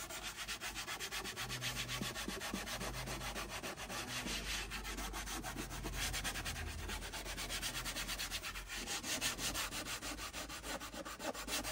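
Hand sanding of a viola's bare wooden body with fine P800 abrasive paper: rapid, steady back-and-forth rubbing strokes, the final smoothing of the white wood before varnishing.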